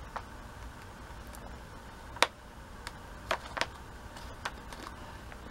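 A knife clicking and tapping against a foil cake tin and plate while a soft sponge cake is cut and a slice served, about five short sharp ticks with the loudest a little over two seconds in, over a low steady room hum.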